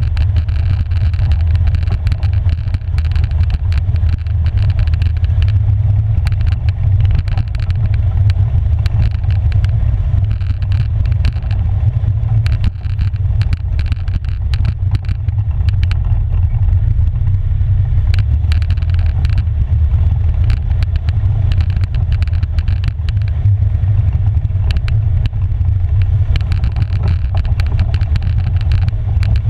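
Polaris Sportsman 570 ATV's single-cylinder engine running steadily on the move, a deep continuous rumble, with frequent sharp clicks and rattles as the quad rolls over the rocky dirt trail.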